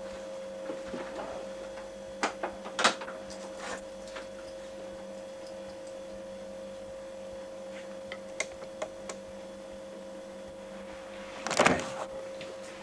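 A steady electrical hum, with a few short clicks and knocks scattered through it and one louder rustling knock near the end.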